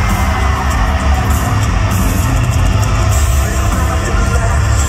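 Heavy rock band playing live at full volume: distorted electric guitars, bass and pounding drums, with a lead singer's voice over the top.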